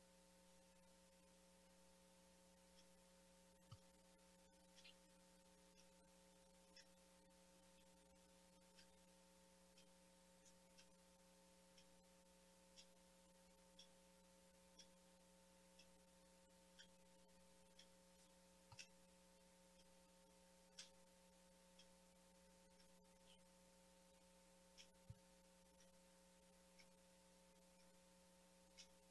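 Near silence: a faint steady electrical hum, with faint ticks about once a second.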